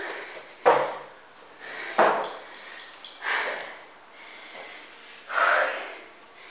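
Two sharp thuds from a person exercising on a floor mat. About two seconds in, a steady high electronic beep from an interval timer marks the end of the interval. Then come two loud, out-of-breath exhales.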